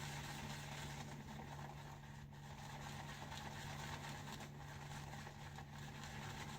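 Badger shaving brush swirling soft shaving soap and a little water in a bowl to start a lather: a faint, steady swishing, over a low steady hum.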